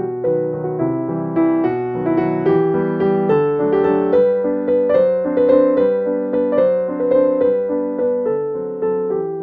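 Background piano music: a gentle melody of struck notes, about two a second, each ringing and fading.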